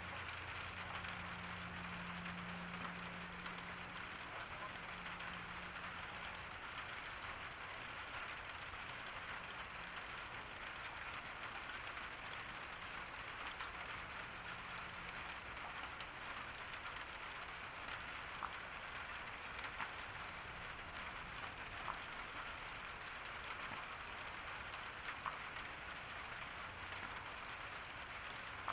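Steady summer rain falling in a garden: an even hiss with a few louder drops ticking now and then.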